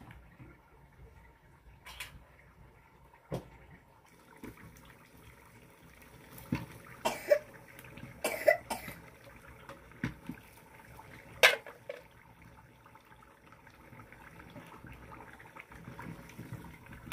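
Peeled potatoes dropped one at a time into a pot of water, with sharp plops and clinks of the metal bowl against the pot, loudest in a cluster around the middle and once more a few seconds later.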